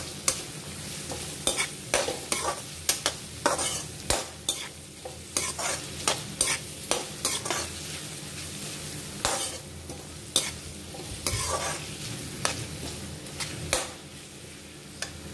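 A metal perforated spatula scrapes and knocks against a kadai as chopped onions are stir-fried in hot oil, over a steady sizzle. The strokes come quickly and irregularly at first, then thin out, with only a few near the end.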